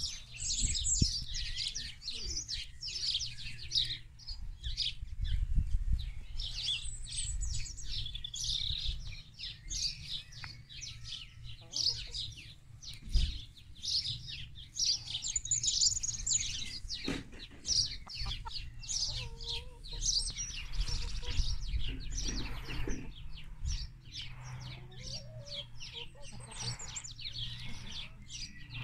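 Small birds chirping busily and without pause, with hens clucking now and then, over a low rumble.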